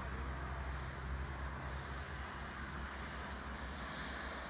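Steady outdoor background noise with a low rumble throughout and no distinct event.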